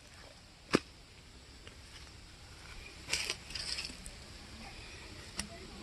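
A single sharp click just under a second in, then a brief rustle about three seconds in, over faint outdoor background noise.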